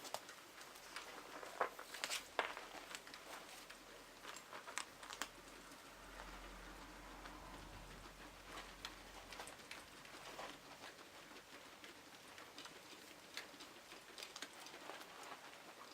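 Guinea pigs moving about their enclosure: faint, scattered pattering and rustling of paws in bedding, with a couple of sharper clicks about two seconds in.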